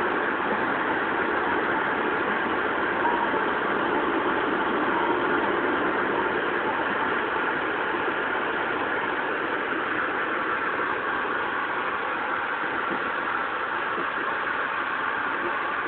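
Steady running noise of an Amtrak passenger train at speed, heard from inside the coach, easing off slightly in the second half.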